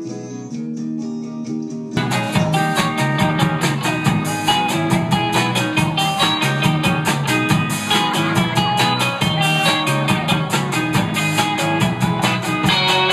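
Rock band playing an instrumental intro: a guitar plays alone at first, then the full band comes in with a steady beat about two seconds in.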